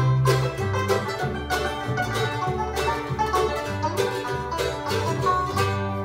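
Bluegrass string band playing: banjo and acoustic guitar picking over a walking upright bass line, settling onto a held final chord near the end.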